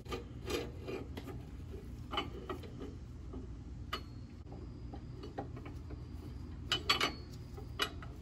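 Light metal clinks, taps and rubbing as a leaf-spring U-bolt and its plate are fitted and the nuts are started on the threads by hand, over a steady low hum; a few sharper clinks come about seven seconds in.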